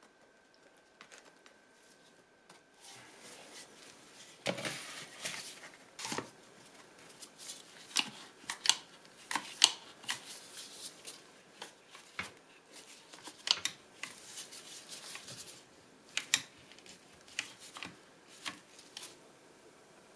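Wooden boards knocking and scraping against each other while a one-handed bar clamp is squeezed tight around them: an irregular run of sharp clicks and knocks with short stretches of scraping, starting a few seconds in and thinning out near the end.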